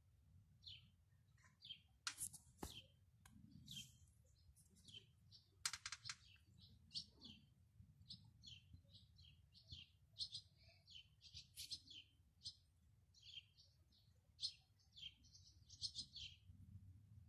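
Small songbirds chirping faintly, many short, high chirps in quick runs, with a couple of sharp clicks about two seconds in.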